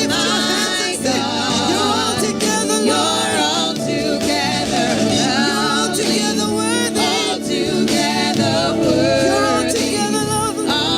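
Gospel worship music: several voices singing with vibrato over steady, held accompaniment.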